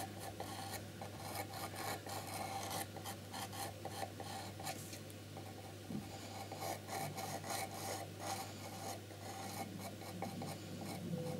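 Pencil point scratching over the painted surface of a box in many short, irregular sketching strokes, faint and scratchy.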